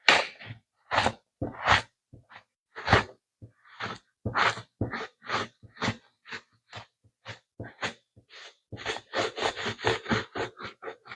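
Foam brush spreading gel stain on a pine board in short scrubbing strokes, about two or three a second, quickening into rapid back-and-forth strokes near the end.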